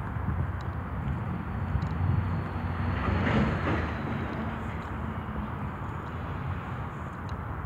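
Steady low rumble of outdoor urban traffic ambience, with a louder, brighter swell about three seconds in that fades away, like a vehicle passing.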